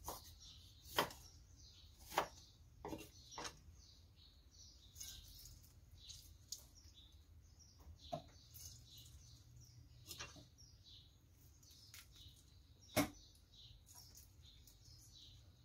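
Occasional sharp knocks of a cleaver cutting limes on a wooden chopping block, the loudest about thirteen seconds in, with small birds chirping in the background.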